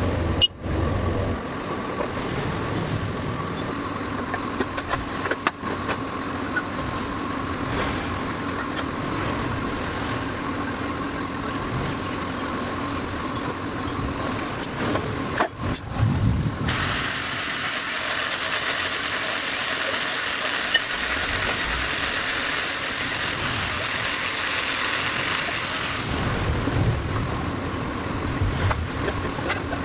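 An engine running steadily. A loud hiss joins it a little past halfway and lasts about nine seconds.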